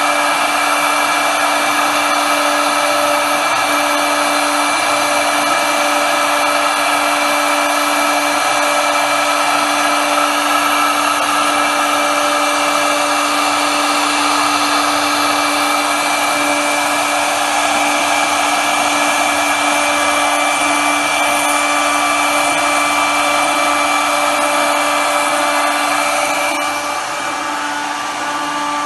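CNC router spindle running with a steady high whine while its bit mills a wooden board, with the hiss of the cut over it. The sound drops a little near the end.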